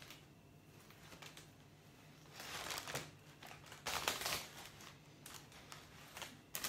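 Cellophane wrap and wired ribbon rustling and crinkling in short bursts as a bow is tightened around the neck of a wrapped hamper, loudest about two and a half and four seconds in.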